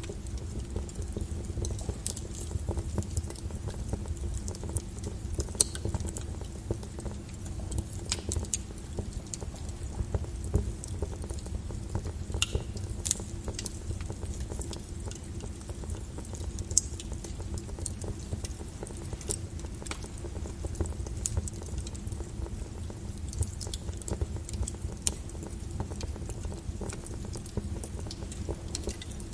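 Small wood fire crackling in a fireplace: irregular sharp pops and snaps over a steady low rumble.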